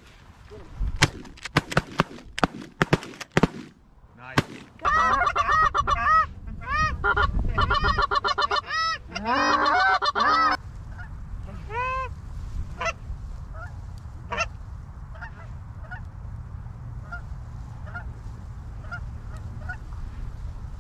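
Canada goose honking: a run of sharp cracks in the first few seconds, then a loud, rapid, dense string of honks for about five seconds, which is goose calling as the flock is worked in. After that come fainter, scattered honks.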